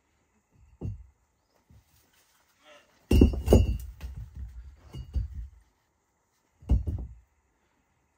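Rocks knocking and grinding against each other as stones are set onto a dry-stacked stone wall. There is a light knock about a second in, a loud clatter of stone on stone about three seconds in, then more knocks a little later and one more solid knock near the end.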